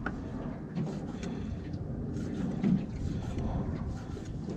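Chef's knife slicing raw seafood into thin sashimi strips on a wooden cutting board: a series of light knife taps against the board over a steady low rumble.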